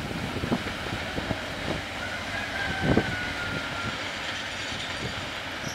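Freight train pushed by a DF7G diesel shunting locomotive rolling away, its wheels clacking unevenly over the rail joints with one heavier knock about halfway. A faint thin squeal is heard for a second or so in the middle.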